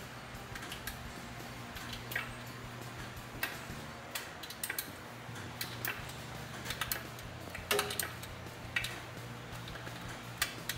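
Irregular metallic clicks and clinks of a hand wrench on bolts as the engine's bolts are drawn up, over a steady low hum.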